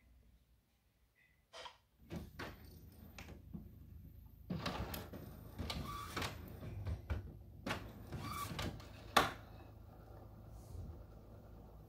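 Scattered mechanical clicks and clunks over a low steady hum that starts about two seconds in, from an Epson WorkForce WF-3720 inkjet printer working through its start-up while its setup screen is being cleared.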